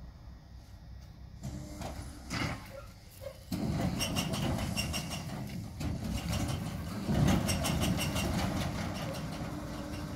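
Diesel engine of a TAKRAF EDK-80 rail crane running under load as the crane works its hook, getting louder about three and a half seconds in and then holding steady with light rattling. A few knocks come before it.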